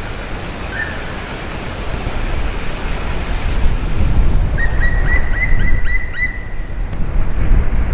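Black woodpecker calling a quick series of about seven even notes about halfway through, after a single short note near the start. Behind it runs a steady rushing noise, with a low rumble of wind on the microphone that grows from about halfway.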